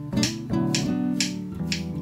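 Background music: plucked acoustic guitar with a light clicking beat about twice a second.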